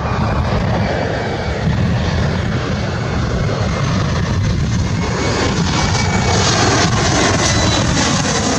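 Airplane flying over: a loud, steady engine rumble with a hiss on top, swelling slightly near the end.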